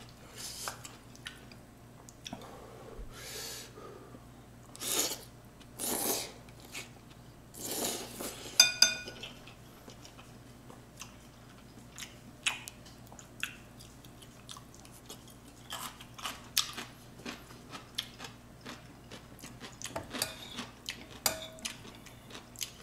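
A person eating ramyeon noodles: several short slurps in the first half, then chewing and many small clicks of wooden chopsticks and a metal spoon against a glass bowl. The loudest sound is a ringing clink of the spoon on the glass about nine seconds in.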